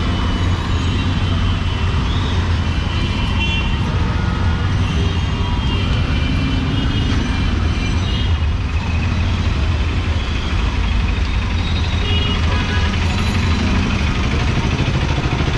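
Congested street traffic: a steady low rumble of idling and slow-moving engines, with short horn toots at times, loudest about a second in and again near the end.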